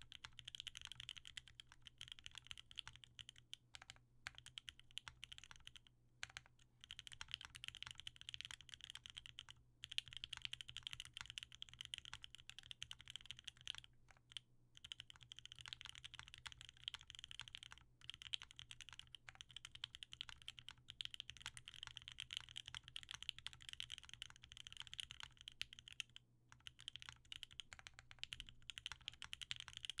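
Continuous typing on a Leaf65 65% mechanical keyboard with lubed OP Black switches, an FR4 plate, case foam and CRP keycaps: a fast, even stream of keystroke clacks, broken by a few brief pauses.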